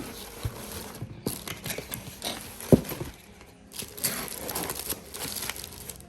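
Packaging of a boxed bowl set being opened: irregular rustling and crinkling with small knocks, and one sharp knock about three seconds in.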